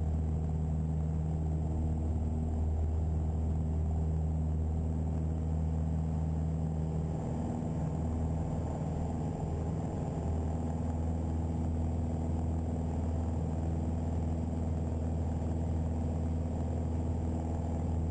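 Piper Archer's four-cylinder Lycoming O-360 engine and propeller at full takeoff power, a steady low drone heard inside the cabin through the takeoff roll, liftoff and initial climb.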